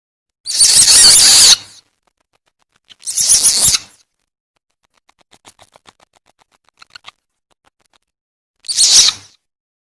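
Civet lure call: three short, noisy screeches, one near the start, one about three seconds in and one near the end, with a faint series of quick clicks between about five and seven seconds in.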